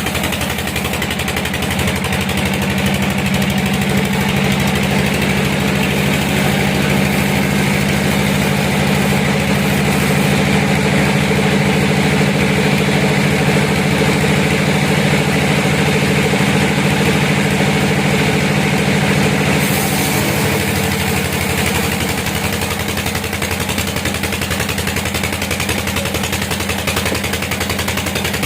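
Sawmill machinery running: a steady engine hum with a fast pulsing beat, which eases slightly and changes a little in tone about 20 seconds in.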